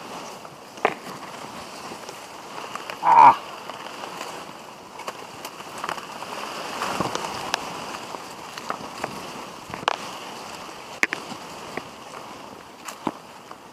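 Footsteps going down a dry dirt trail and leaves and branches brushing past, with scattered twig snaps and leaf crackles. About three seconds in there is one brief, loud pitched sound, like a short vocal grunt.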